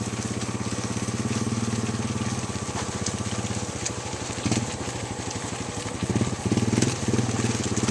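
A vehicle engine running steadily at low revs, with a fast even throb, briefly louder about halfway through and again near the end.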